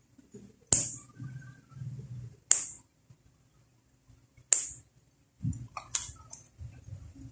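Steel cuticle nipper snipping at the edge of a toenail: three sharp clicks about two seconds apart, then a quicker run of clicks near the end.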